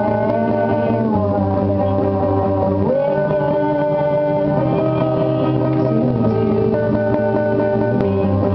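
Two electric bass guitars played live through amplifiers in a slow passage. They hold notes that slide into new pitches every couple of seconds.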